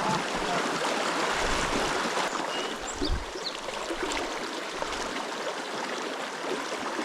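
Small river flowing: the steady rush of moving water.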